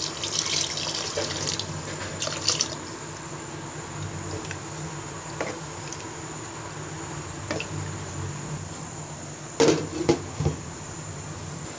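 Water poured into a pan of chicken and mung dal curry for the first couple of seconds, then a wooden spoon working through the curry with a few faint knocks. Near the end a pan lid is set on with a short clatter of several sharp knocks, the loudest sound here.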